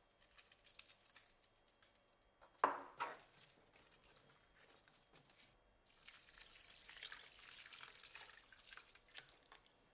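Water poured from a glass jug into a baking pan of beans, a faint steady trickle and splash from about six seconds in. A single short knock comes about three seconds in.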